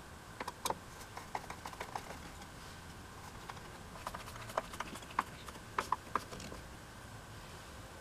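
Light metallic clicks and taps of a screwdriver working screws through the mounting holes of a cast-iron stapler base into its wooden board. The clicks come in two clusters, one in the first two seconds and another from about four to six seconds in, over a faint steady hum.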